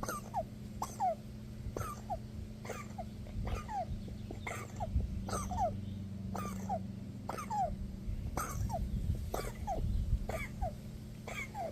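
An animal's wheezing breaths: each breath a short squeaky whistle that falls in pitch, a little under two a second, over a steady low hum.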